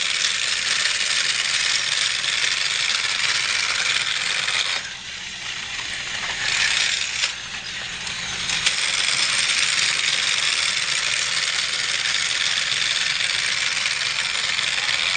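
Battery-powered TrackMaster toy train running on plastic track: a steady, busy rattle of the small motor and plastic wheels. It drops away briefly about five seconds in and again about seven seconds in, with a sharp click near nine seconds.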